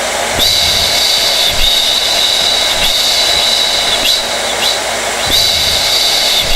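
Hair dryer running steadily: a loud rush of blown air with a high whine that dips briefly several times.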